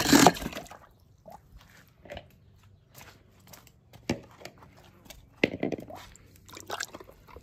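A die-cast toy car slides down a plastic slide into a pool of water with a short burst of noise at the start. Scattered soft, crunchy clicks and knocks follow.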